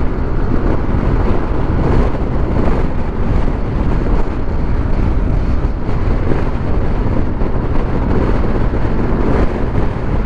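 Steady wind rushing over a GoPro's microphone on a moving two-wheeler, with the bike's engine and tyre noise underneath.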